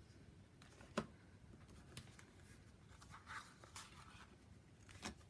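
Faint rustling of card stock and paper pieces being handled, with a sharp tap about a second in and another near the end.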